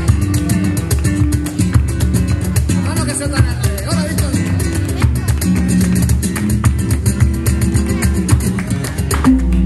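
Live flamenco bulerías: strummed and plucked Spanish guitar over hand-drum percussion, with a steady stream of sharp rhythmic strikes.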